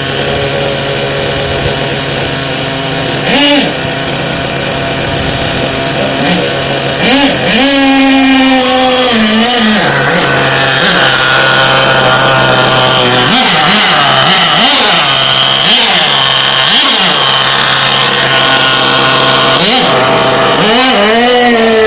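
Small nitro RC car engine idling with quick throttle blips: short revs a few seconds in, a longer run of revving, then a string of brief blips about once a second, and another rev near the end.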